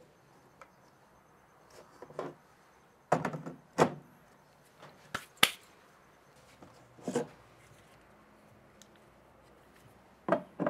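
A few scattered sharp knocks and clicks, about half a dozen, of plastic cordless tool batteries and the plywood charging station being handled, with quiet workshop room tone between them.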